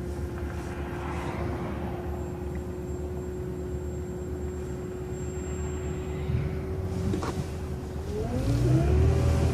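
City transit bus running with a steady drivetrain whine and a low rumble, then pulling away about eight seconds in, its engine note rising as it accelerates.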